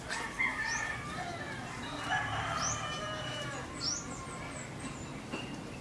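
A rooster crows once, a long wavering call of about three seconds, while small birds give short high chirps throughout.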